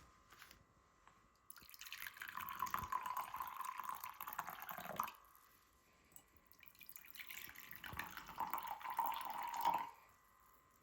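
Water pouring into a vessel in two runs of about three seconds each, the second starting about seven seconds in.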